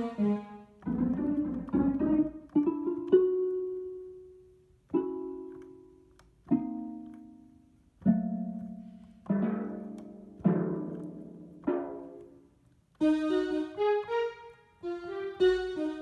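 Akai MPK Mini Play's built-in sound engine playing its string presets through a speaker: tremolo string chords at first, then single plucked notes that each ring and die away one after another (orchestral harp preset), then fuller chords near the end.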